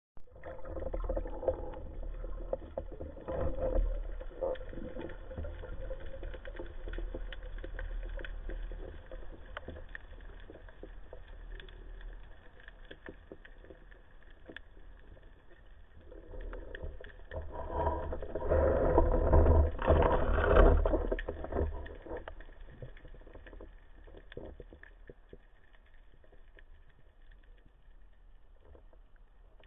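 Muffled underwater noise picked up by a diving camera during a freedive: a steady low rumble with water movement and scattered clicks, growing louder for a few seconds past the middle and fading near the end.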